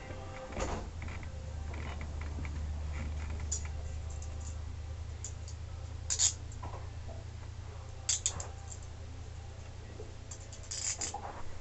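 Steady low hum with a few short clicks and rustles: one about a second in, sharper ones around six and eight seconds in, and a cluster near the end.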